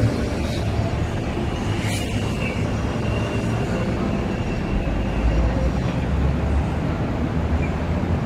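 Macau LRT Mitsubishi Crystal Mover, a rubber-tyred automated train, approaching on its elevated guideway: a steady rumble that gets heavier in the low end over the last few seconds as it nears. A faint thin high whine runs through the middle.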